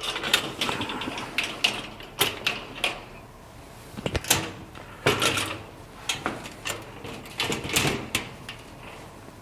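Garden cart side panels being folded up and fitted into the frame: a string of irregular sharp clicks, knocks and rattles with short scrapes, loudest around four to five seconds in and again near eight seconds.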